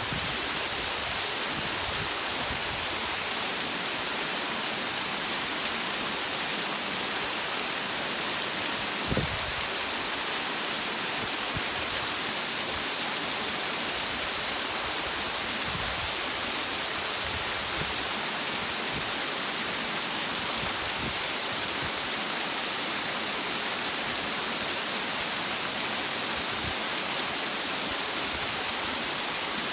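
Waterfall and river water rushing steadily in an even hiss, with a brief low bump about nine seconds in.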